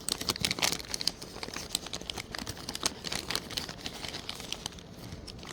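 Plastic packaging crinkling and rustling in the hands, an irregular run of small crackles that is loudest in the first second or so, as a bag of shoe charms is handled.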